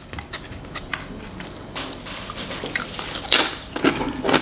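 Tortilla chip handled close to the microphone, with small scattered crackles, then a louder crisp crunch about three and a half seconds in.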